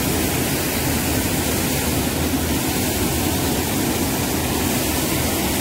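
Muddy river swollen in flood after rain, rushing and churning white over rocks: a steady, unbroken rush of water.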